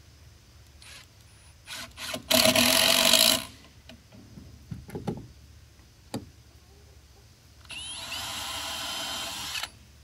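Cordless drill running in two bursts: a loud one of about a second, then, after a few small clicks, a quieter run of about two seconds that starts with a rising whine.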